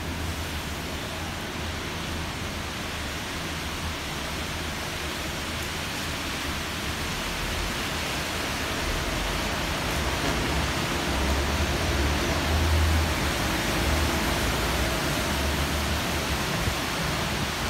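Heavy, steady rain pouring down on a city street below an open upper-floor window. It grows a little louder partway through, and a low rumble swells around the middle.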